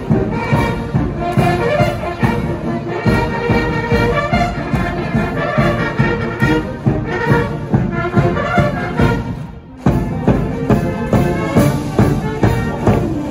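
Military brass band of bugles, brass and drums playing a march, with a steady drum beat under the brass. The music fades and breaks off for a moment about nine and a half seconds in, then starts again with a strong beat.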